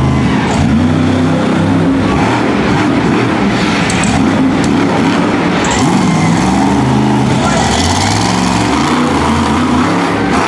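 Monster truck engine revving hard, its pitch climbing and falling again and again, with a few sharp knocks partway through.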